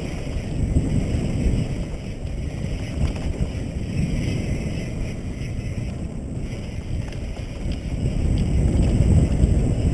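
Mountain bike descending a dirt singletrack: steady low rush of wind on the microphone mixed with tyre noise on the dirt, with a few faint light rattles.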